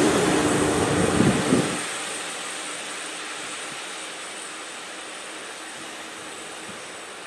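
ÖBB class 1144 electric locomotive and its freight train rolling past close by with a steady hum and a few knocks from the wheels. About two seconds in the noise drops sharply, then fades steadily as the train runs away into the distance.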